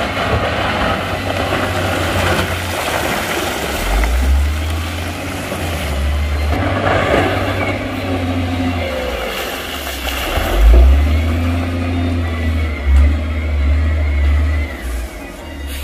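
Heavy earthmoving machinery working: a big diesel engine runs with a deep, uneven rumble and swells louder a couple of times.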